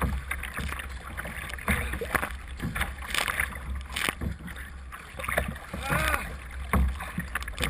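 Kayak paddle blades splashing into choppy water stroke after stroke, about once a second, with wind rumbling on the microphone. A short vocal cry about six seconds in.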